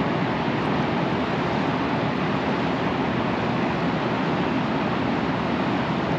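Swift, high river water rushing past the bank in a steady, unbroken roar.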